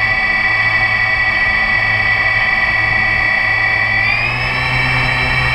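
3DR IRIS+ quadcopter's brushless motors and propellers spinning at idle while it sits on the ground: a steady high whine over a low hum. The pitch rises a little about four seconds in.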